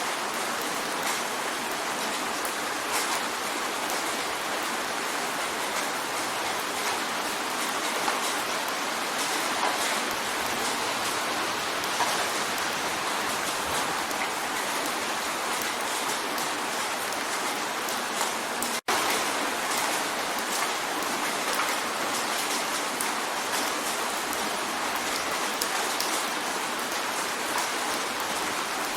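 Steady rain drumming on a window pane, a dense even patter with many small drop ticks. The sound cuts out for an instant about two-thirds of the way through, then carries on unchanged.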